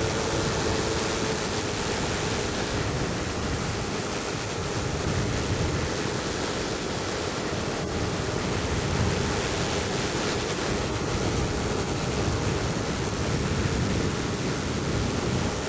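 Steady rush of airflow noise from a flex-wing microlight trike in flight, with its engine running at a constant setting underneath.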